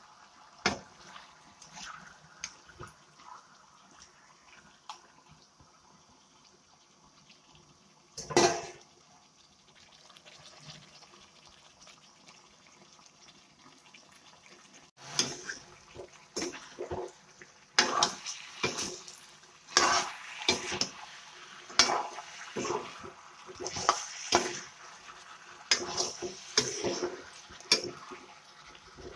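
Metal spatula scraping and clinking against a wok as chunks of chicken are stirred. A few scattered clinks and one louder knock come first, then steady, rapid stirring from about halfway.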